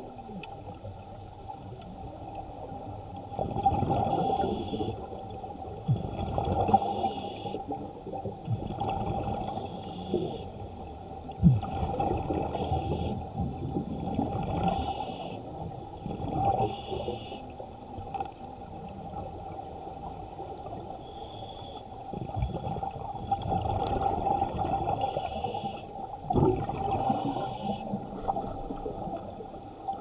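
Scuba diver breathing through a regulator underwater: a hiss on each inhale and a gurgling rush of exhaust bubbles on each exhale, about every two to three seconds, with a pause of a few breaths' length midway.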